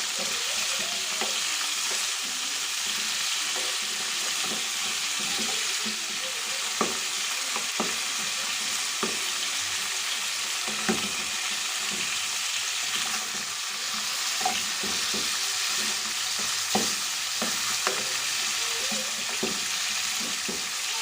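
Chicken wing drumettes frying in olive oil in a pot, a steady sizzle, with scattered short clicks and knocks of a utensil as the pieces are turned over.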